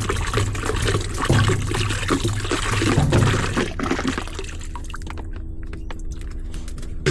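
Water pouring and splashing; about four seconds in the splashing thins out, leaving a steady low hum.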